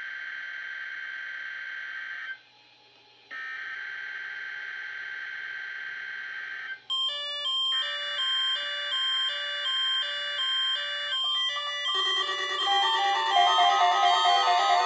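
Weather radio receiver alarms: a steady electronic alert tone breaks off for about a second and resumes. About seven seconds in, a second alarm's rapid on-off beeping joins it. Near the end, a fast electronic chime melody takes over.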